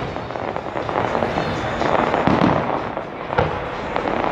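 Fireworks display: aerial shells bursting with a few deep booms over continuous dense crackling.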